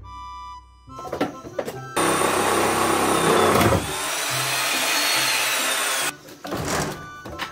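Corded electric power tool cutting into the old floor timber for about four seconds. Its whine sags and rises as the blade loads up. A few knocks follow.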